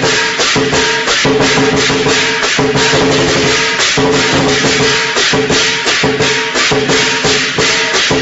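Loud music with fast shaker and drum percussion over a steady repeating tone, stopping shortly after the end.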